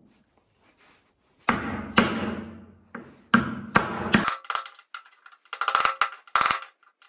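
Steel hammer striking a wooden pad to drive a tight-fitting steel tube into a hole in a plywood block: a run of heavy knocks starting about a second and a half in, then quicker, sharper blows with a short metallic ring that grow louder near the end.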